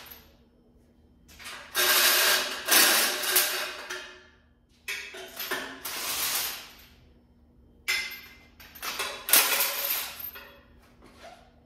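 Cordless power tool running in four bursts of one to three seconds, backing out bolts on an engine.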